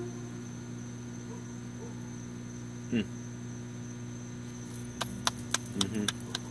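Pause between songs of a music-synchronised Christmas light show: a steady low hum with a thin, steady high-pitched tone over it, and one short sound about three seconds in. Near the end a run of sharp clicks begins as the next song starts.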